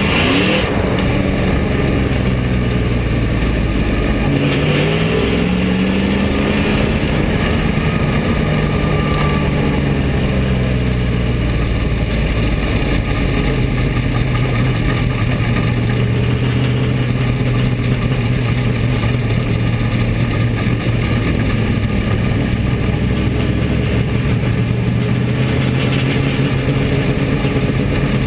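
Bomber-class dirt track stock car's V8 engine heard from inside the cockpit, loud throughout. It revs up near the start and again about four to six seconds in, then settles into a lower, steady note for the second half.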